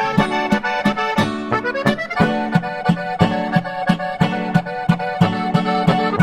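Background music led by an accordion, with a quick, steady beat and a rising run of notes about two seconds in.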